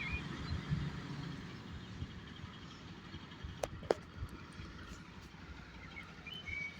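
A motor vehicle's engine running with a steady low rumble. Two sharp clicks come a little past halfway.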